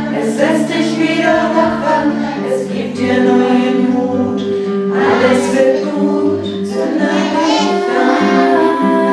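A small group of women singing a song together, accompanied by a nylon-string classical guitar.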